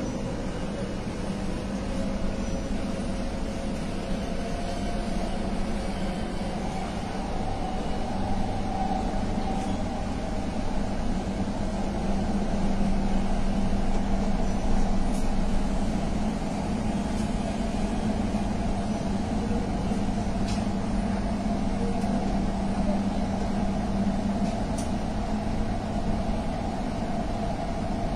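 Doha Metro train running along its track, heard from inside the front car: a steady low hum with rolling noise, a little louder midway.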